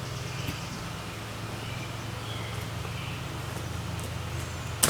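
Homemade sawmill's engine idling steadily, a low even hum, with faint bird chirps over it. A couple of sharp knocks come near the end.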